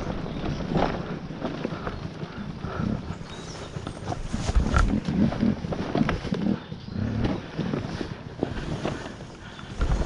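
Enduro dirt bike engine running at low revs in an uneven, lumpy rhythm, with knocks and rattles from the bike as it goes over the rutted trail.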